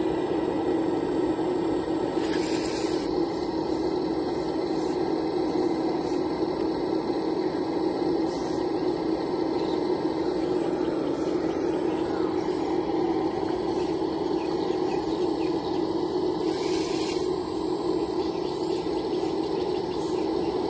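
Scale RC hydraulic excavator's pump motor running with a steady whine while the boom and bucket work, with two short hisses, one about two seconds in and one near the end.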